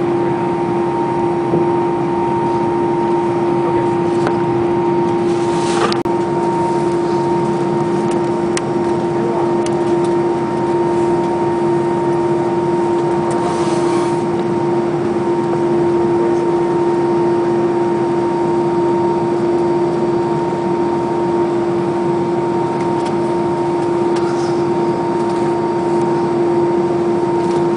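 Airbus A319's jet engines at taxi idle, heard inside the cabin: a steady drone with a constant humming tone. Two brief hisses come about six and fourteen seconds in.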